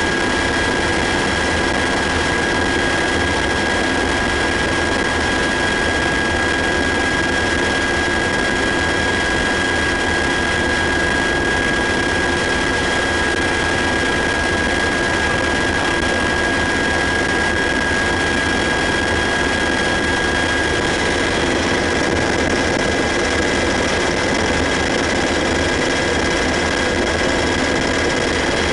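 Cabin noise inside a UH-60 Black Hawk helicopter in flight: its twin turboshaft engines, rotor and transmission make a loud, steady din with a high, steady whine over it.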